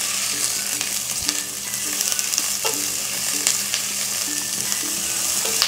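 Chopped onion, green chillies and garlic sizzling in hot oil in a stainless steel pot as they are stirred, the spatula scraping and clicking against the pan.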